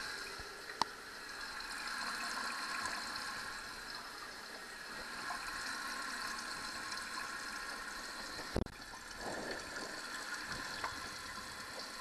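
Water running steadily into a Kohler toilet tank through its fill valve, a continuous hiss as the tank refills after the supply valve is opened. A sharp click comes about a second in and a louder knock past eight seconds.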